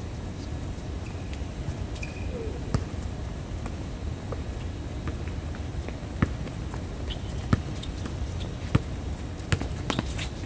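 A basketball bouncing on an outdoor hard court now and then: a handful of sharp, separate thumps over a steady low background hum.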